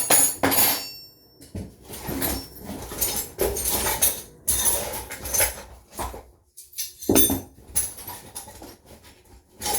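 Metal hand tools clinking and clattering in irregular bursts as they are rummaged through in a toolbox.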